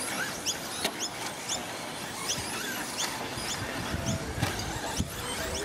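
Radio-controlled short course trucks racing on a dirt track, with a string of short, high, rising chirps repeating about twice a second and a few sharp clicks.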